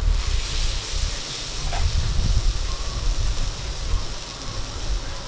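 Beef steaks and garlic cloves sizzling on a hot flat-top teppan griddle, a steady hiss that is loudest for the first few seconds and then eases a little, over a low rumble.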